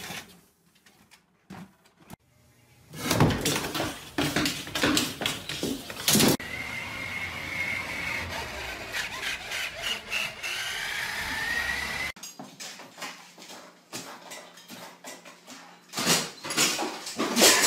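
Three short pet sounds one after another. First, irregular thuds and knocks from a treadmill with a dog walking on it. Then a battery toy dump truck's electric motor whirring, with a faint rising whine, and finally clicks and rattles from a baby gate as a dog climbs it.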